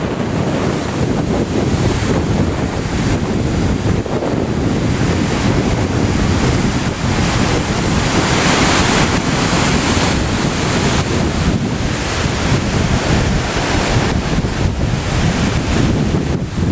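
Waterfall on the Río Paine, a loud, steady rush of falling water, with wind buffeting the microphone in gusts.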